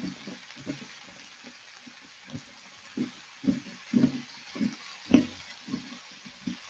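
Julienned chayote sautéing in a wide pan with a steady sizzle. A silicone spatula stirs and turns the strips, giving irregular soft thumps and scrapes that come thickest about half-way through.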